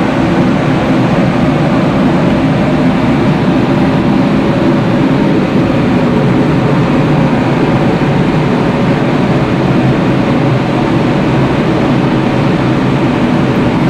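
Biomass wood pellet burner running: a steady, loud machine drone with a low rumble and a faint hum.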